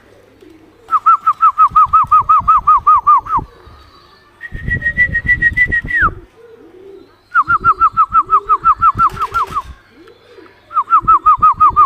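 Loud human whistling: three fast trills of short downward-sliding notes, about six a second, and between the first two a single held higher whistle that drops off at its end, the way a pigeon fancier whistles to pigeons in the air. Pigeons coo softly in the gaps.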